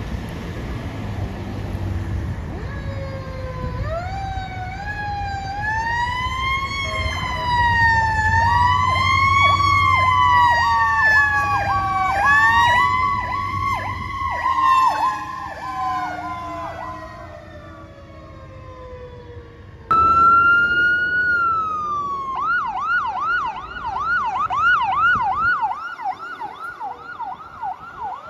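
Fire engine sirens: a slow wail rising and falling, joined about 8 seconds in by a fast yelping siren, over the low rumble of traffic. After an abrupt cut about 20 seconds in, another siren runs in a fast yelp, and a wail starts rising near the end.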